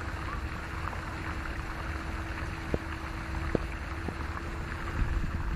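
Steady low rumble of vehicle and road noise, with a faint steady hum underneath and a few light clicks.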